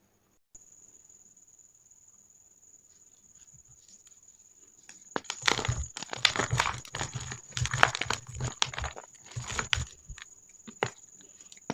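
Plain Jane gym chalk balls being crushed, giving dense irregular crunching and crackling from about five seconds in. Before that there is only a faint steady high whine.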